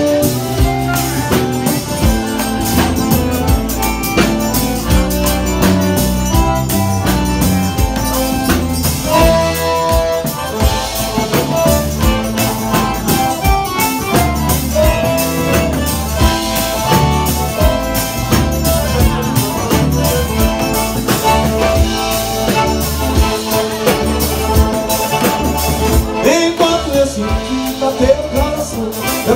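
Live forró pé-de-serra band playing an instrumental passage, with accordion, zabumba bass drum, guitar and drum kit keeping a steady dance beat.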